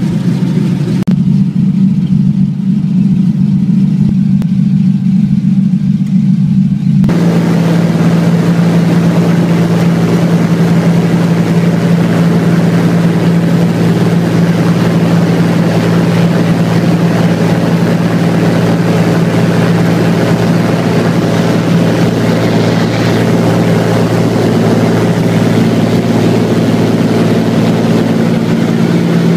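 Single-engine floatplane's piston engine and propeller heard from inside the cabin: a steady low drone while taxiing, then, about seven seconds in, the engine goes to full power for the takeoff run across the water. From there it runs loud and steady, with a much fuller, hissing sound and one steady drone pitch.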